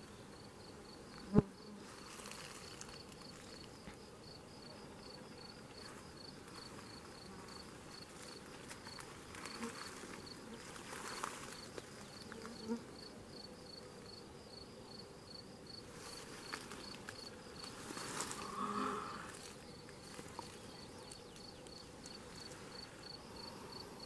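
A cricket chirping steadily, short high chirps about three a second in an even rhythm. A single sharp click about a second and a half in is the loudest sound.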